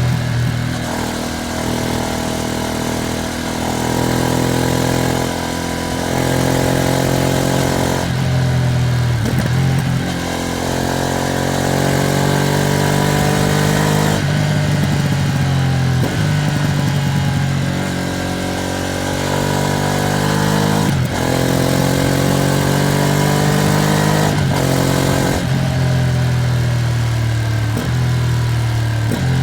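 2025 Ducati Streetfighter V2S's V-twin engine pulling through the gears: its pitch climbs several times and drops back at each gear change. The bike is being ridden gently during its break-in.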